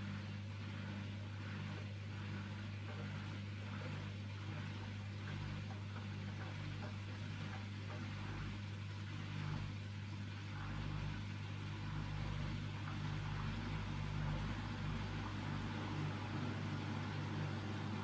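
Hoover Dynamic front-loading washing machine turning its drum on a delicate 40 °C wash, laundry tumbling, with a steady low motor hum that grows a little louder in the second half.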